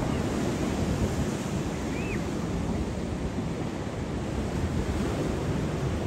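Steady wind noise on the microphone blending with a continuous wash like surf, unbroken and even throughout. A faint short high chirp sounds about two seconds in.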